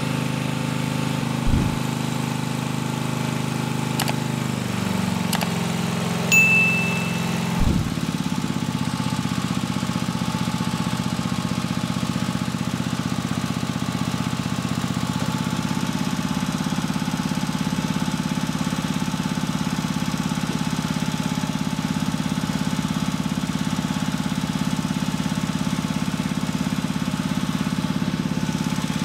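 Pump running steadily, driving liquid through a flow meter under test. Its pitch drops a few seconds in and then holds. Two dull thumps and a brief high squeak come early on.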